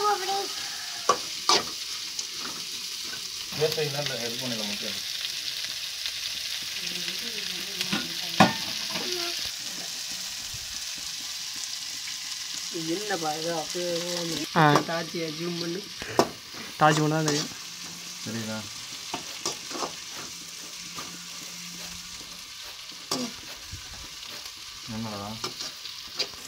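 Sliced onions frying in hot oil in a metal pot, sizzling steadily, while a metal ladle stirs them and clicks and scrapes against the pot. The sizzle is louder in the first half and softer after about ten seconds.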